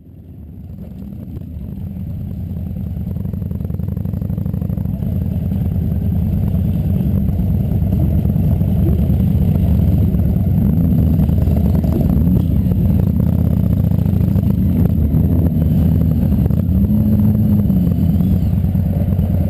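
Motorcycle engines running at low speed as a group pulls away, a steady low rumble close to the camera that fades in over the first few seconds.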